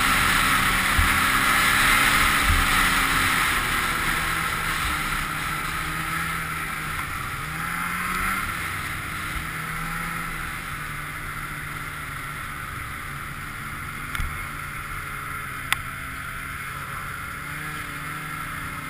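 Polaris snowmobile engine and track running under way, with wind noise. The engine eases off and the sled slows, so the note drops and the rushing noise fades over the first half, then it runs low and steady as the sled rolls in. A sharp click comes near the end.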